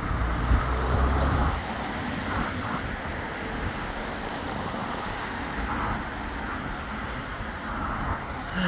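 Road traffic noise, louder and lower in the first second and a half, then steady.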